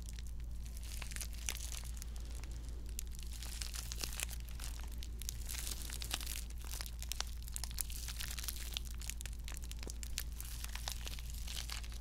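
Crinkly plastic packaging handled and crumpled close to the microphone: a dense, irregular run of small crackles.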